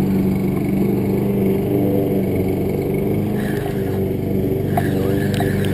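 A steady engine drone, a low hum with a slightly wavering pitch, with a few short clicks near the end.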